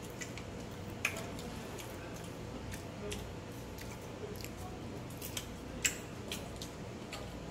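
Someone eating crisp fried chicken wings and fries: scattered crunching and small clicks as food is picked from the plate and chewed, the sharpest about a second in and near six seconds. A faint steady low hum sits underneath.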